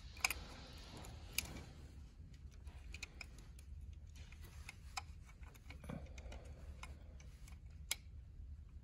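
Faint scattered clicks and taps of a small plastic two-prong connector being handled and pushed onto the terminals of an undervoltage release coil on a circuit breaker's operating module. The sharpest clicks come just after the start, at about a second and a half in, and near the end.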